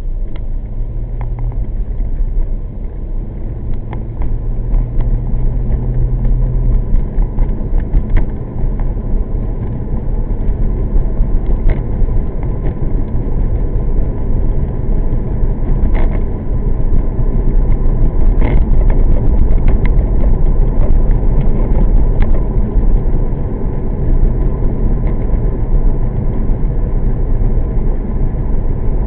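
1998 Corvette C5's 5.7-litre V8 and tyres on the move, a steady low rumble of engine and road noise that grows louder a little past halfway through.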